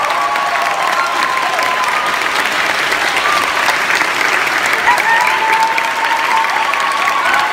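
A large audience applauding, with a few voices calling out over the clapping.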